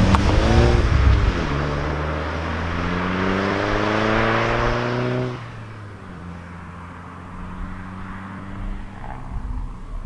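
2017 Volkswagen GTI's turbocharged 2.0-litre four-cylinder accelerating away. The engine note rises, dips at a gear change about a second in, then climbs again through the next gear. About five seconds in, the loud note drops off sharply, leaving a fainter, steady engine sound.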